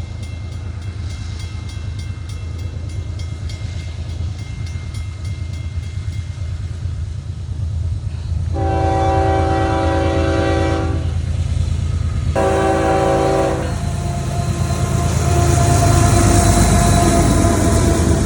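Train horn sounding twice, a long blast of about two and a half seconds then a shorter one, over the steady low rumble of a train. The rumble grows louder near the end.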